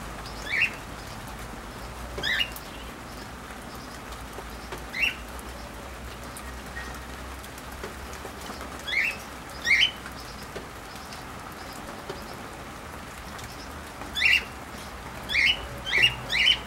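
Cockatiels flapping their wings and giving short chirping calls, about nine in all, loosest in the middle and coming in quick succession near the end, over a steady hiss of falling rain.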